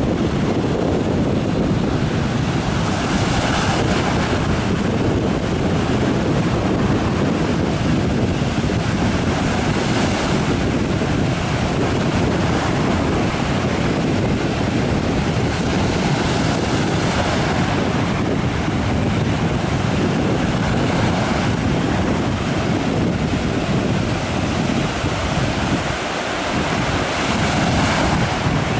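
Sea surf breaking and washing up the sand, its hiss swelling and fading every several seconds, over a steady low rumble of wind on the microphone.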